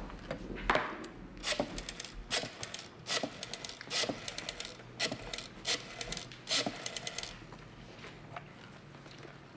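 Black rotary desk telephone being dialled: about seven short runs of quick clicks as the dial spins back after each digit, stopping about two seconds before the end.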